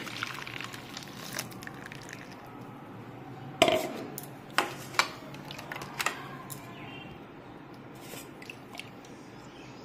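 Steel kitchenware clinking a few times as blended watermelon is poured into a stainless steel mesh strainer over a bowl, the loudest clink about three and a half seconds in, over a low steady hiss.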